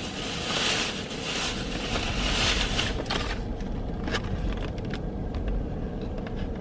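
A hissing noise that swells and fades for the first three seconds, then light clicks and rustles from plastic food packaging being handled, over a steady low hum inside a parked car.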